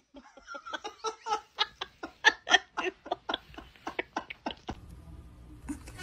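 A person laughing in a quick run of short bursts, about four or five a second, loudest midway and fading out before the end.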